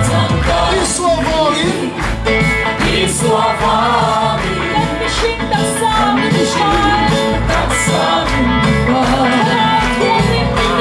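Loud worship music: voices singing a melody over instruments, with a steady drum beat and regular cymbal hits.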